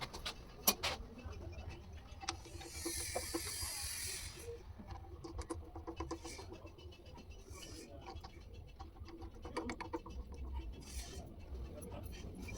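Small metal parts clicking and scraping as they are handled, with a sharp click a little under a second in and a hiss lasting about a second and a half, starting near the three-second mark.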